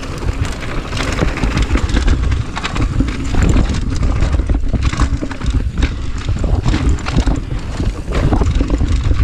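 Mountain bike riding down a dirt forest trail, heard from a chest-mounted camera: steady wind noise on the microphone, tyres running over dirt, and the bike rattling and knocking over bumps and roots.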